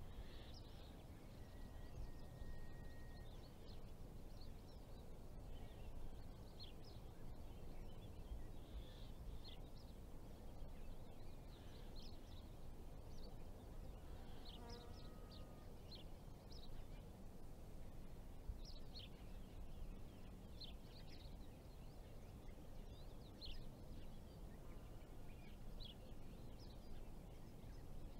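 Faint outdoor ambience: many short, high bird chirps scattered throughout, over a low, steady background rumble.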